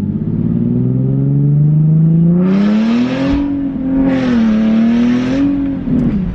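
Nissan 370Z's V6 under acceleration through a Tomei Expreme Ti titanium exhaust. The engine note climbs steadily for about three seconds, eases briefly, climbs again, then falls away near the end as the throttle comes off, with a raspy edge at the top of each climb.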